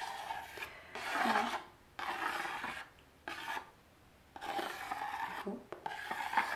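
A stylus scratching the black coating off a rainbow scratch-art board, in about six short spells of strokes with brief pauses between.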